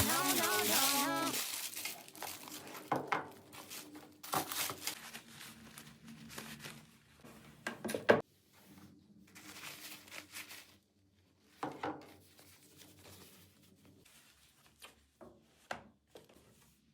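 Packaging being handled while unboxing a pair of shoes: irregular crinkling and rustling of wrapping, with a sharp click about eight seconds in. Pop music fades out in the first second or two.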